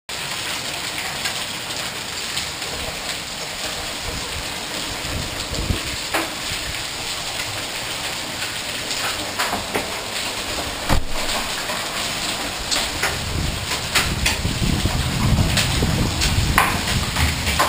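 Steady rain falling, with hailstones striking hard surfaces as sharp cracks scattered through it, more often in the second half. A low rumble builds in the last few seconds.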